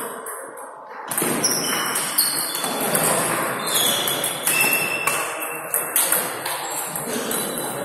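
Table tennis ball clicking off rackets and the table in a rally, with more ball clicks from neighbouring tables echoing in a large sports hall.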